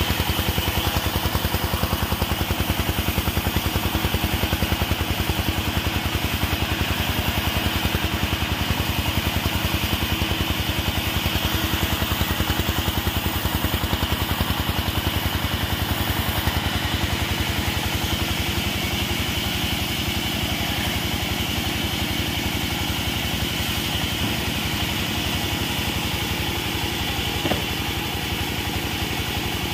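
Engine-driven portable sawmill running steadily with an even pulsing engine beat as a log is fed through the saw, with one short knock near the end.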